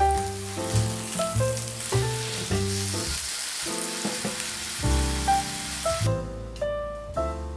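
Beef tenderloin steak sizzling as it sears in melted butter in a frying pan. The sizzle stops about six seconds in, and light piano music plays throughout.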